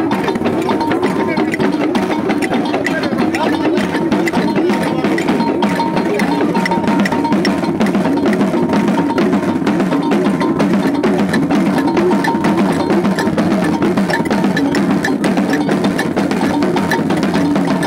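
Dagomba drum ensemble, lunsi talking drums and gungon drums, playing a fast, steady Damba dance rhythm with many quick strikes a second.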